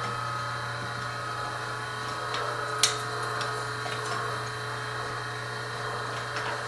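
The motor of an old cylinder printing press, about 55 to 60 years old, running with a steady hum, and a sharp click about three seconds in.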